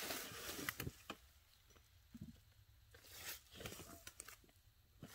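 Faint, irregular rustling and crackling, louder over the first second and again in a crunchy cluster about three seconds in.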